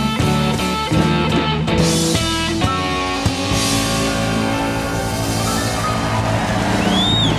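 Live blues band playing the closing bars of a song on guitars, bass, drums and piano. The notes run into a long held final chord with cymbal wash about three seconds in. A high rising-and-falling whistle cuts in near the end.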